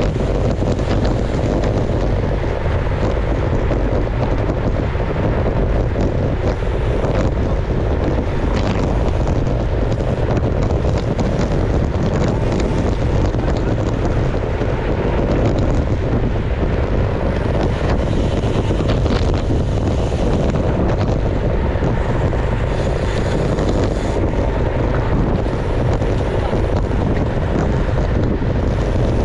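Steady wind rush buffeting a bike-mounted action camera's microphone while riding at speed on a road bike in a group of cyclists.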